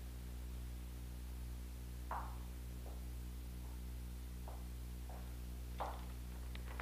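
Steady low electrical hum with about six soft taps, one every three quarters of a second or so, from a person's footsteps as they walk across a room; the first tap is the loudest.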